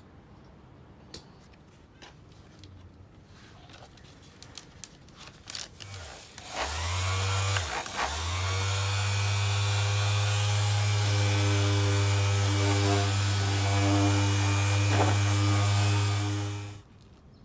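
An electric power tool starts up about six seconds in, runs steadily with a strong hum for about ten seconds, then cuts off suddenly. Light clicks and knocks come before it.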